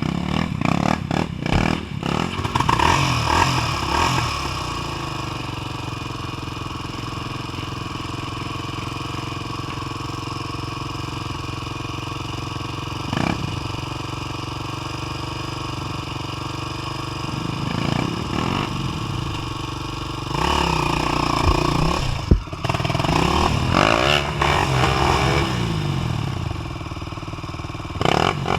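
Dirt bike engine running with a steady drone, the revs rising and falling in louder throttle bursts during the first few seconds and again for several seconds about two-thirds of the way through. A sharp knock comes partway through that later burst.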